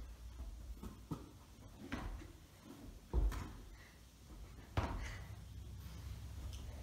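Dull thuds of a football slapping into latex-palmed goalkeeper gloves as it is caught, with a few lighter knocks between; the loudest catch comes a little under halfway in and another about two-thirds through.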